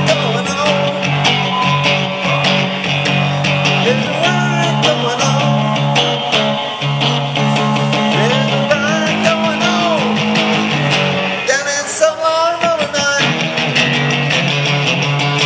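Squier Stratocaster electric guitar played through an amplifier in a bluesy rock-and-roll instrumental break: a repeating low riff under high notes that bend up and fall back.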